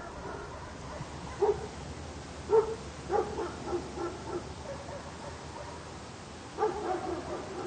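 A dog barking outdoors: single barks, then a quick run of several, then another cluster near the end, over a steady outdoor background hiss.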